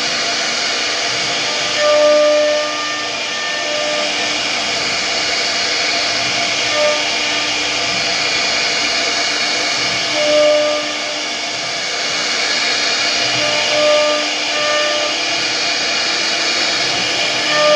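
CNC router spindle carving a relief pattern into a wooden panel: a steady hissing whir from the spinning cutter, with a humming tone that swells briefly several times as it cuts.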